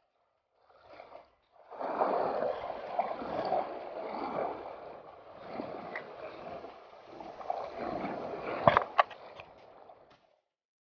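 Sea water sloshing and lapping close to the microphone in uneven swells, with a few sharp clicks near the end.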